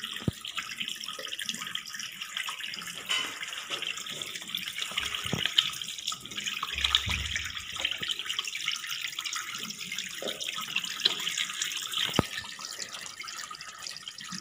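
Tap water running steadily into a ceramic washbasin while hands are washed under it. Three sharp knocks are spread through the sound.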